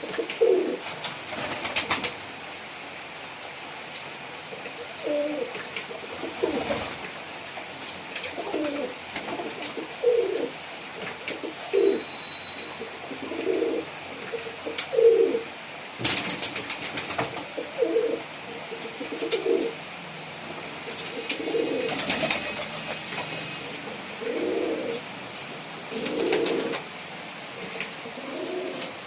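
Pigeons cooing over and over, low rolling coos every second or two, with several short bursts of clicking or rustling in between.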